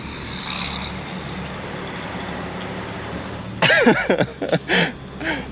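Steady road and engine noise heard inside a moving vehicle's cabin, with a low hum. About three and a half seconds in, a short, loud burst of a man's voice with sharply sliding pitch cuts in, and a smaller one follows near the end.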